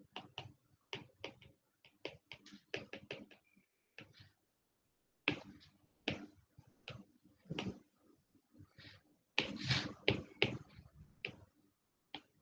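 Stylus tapping and scraping on a tablet's glass screen during handwriting: a quiet, irregular run of short clicks and taps, with a denser cluster about ten seconds in.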